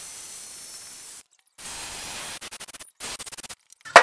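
DeWalt XR cordless jigsaw cutting a curve out of 1/4-inch MDF: a steady hissing cut, a short break, then shorter stop-start bursts. A sharp knock comes at the very end.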